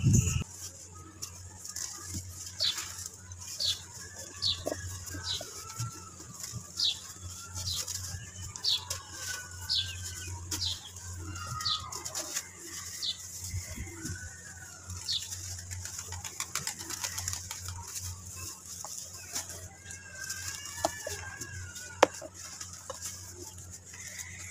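Soft wet red dirt chunks crumbling in a basin of water as hands squeeze them, with scattered gritty clicks and one sharp click near the end. Birds call in the background: a run of short, high, falling chirps through the first half, then softer wavering calls.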